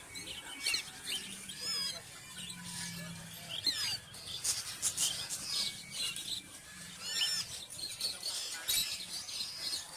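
Cockatiel chicks chirping in quick, repeated squeaks that rise and fall: the food-begging calls of chicks being hand-fed.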